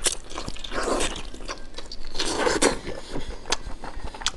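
Close, wet biting and chewing of a thick piece of braised donkey intestine coated in chili sauce: a few separate bites and mouthfuls with squelching mouth sounds, then some sharp clicking smacks near the end.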